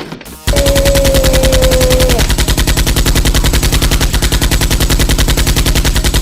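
Machine-gun sound effect: a very loud, fast, unbroken stream of automatic gunfire that starts abruptly about half a second in, with a held tone over its first couple of seconds.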